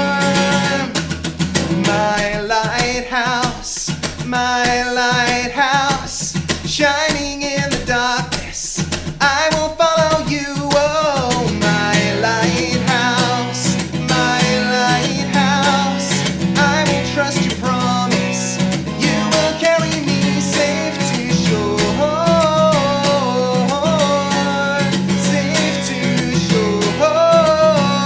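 Music: a song with guitar, drums and a singing voice.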